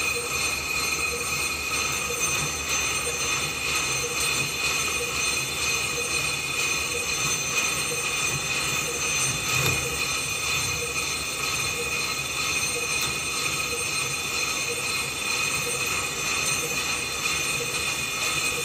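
CNC lathe turning the worn threads of a steel drill-rig saver sub, the tool cutting steadily with a high, even squeal as the chips peel off. The tool has a little wobble in it.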